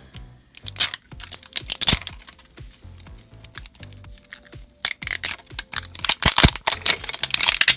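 Fingernails picking and scratching at the plastic shrink-wrap on a plastic toy cauldron, trying to catch the tear strip: quick crinkly clicks and taps, sparse at first and coming thick and fast from about halfway on.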